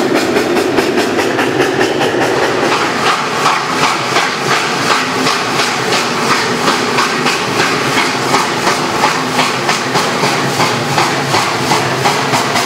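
Passenger cars rolling past with wheels rumbling and clicking over the rail joints, then a steam locomotive working out of a tunnel, its exhaust chuffing in an even beat of about two a second.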